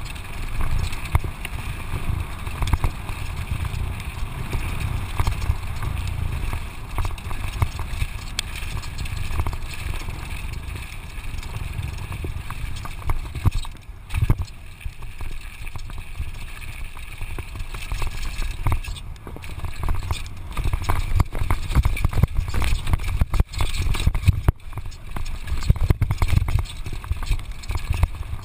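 Wind buffeting a GoPro microphone as a downhill mountain bike rides fast over a gravel track, with the tyres crunching and the bike clattering over bumps. Briefly quieter about halfway through.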